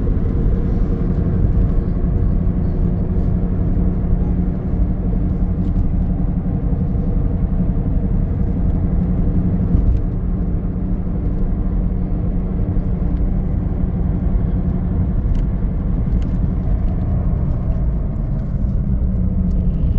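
Car running at a steady pace: a continuous low engine hum with road rumble.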